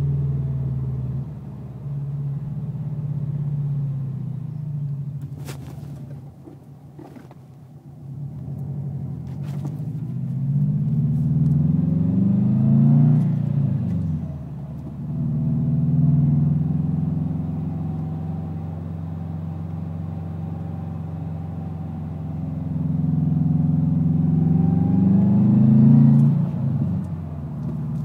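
2011 Subaru WRX's turbocharged flat-four running through an Invidia N1 race cat-back exhaust. It revs up twice, each rise lasting a few seconds, then drops back sharply, with a quieter stretch early on. The exhaust makes a fluttering note that the owner finds odd.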